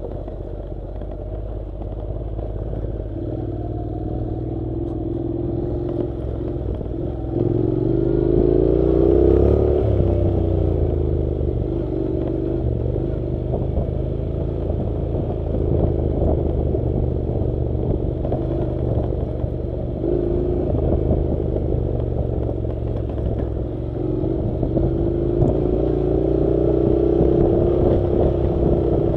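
Honda NC700's parallel-twin engine running on a dirt track, the revs climbing and easing off twice, with clattering from the rough ground.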